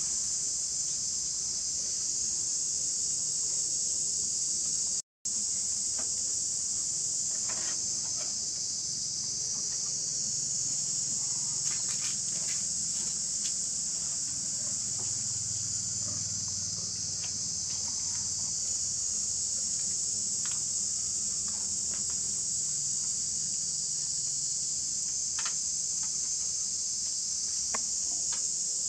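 Steady, high-pitched chorus of insects droning without a break, with a few faint ticks scattered through. The whole sound cuts out for a split second about five seconds in.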